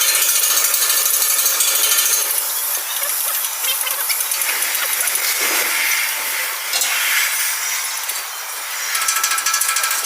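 Metalworking noise, a harsh steady hiss and scrape that changes texture a few times, turning into fast, even ticking near the end.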